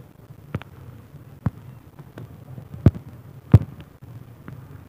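A run of sharp clicks and knocks at uneven intervals, about seven in all, the loudest two a little past the middle, over a faint steady low hum.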